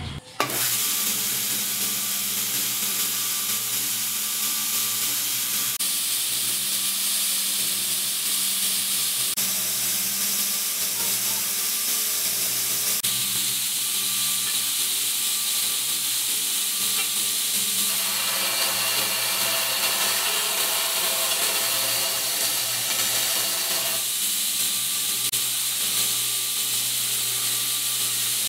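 Homemade belt sander driven by a 1 hp bench grinder motor, running free with no work on the belt: a steady hiss from the 36-grit belt over a low motor hum.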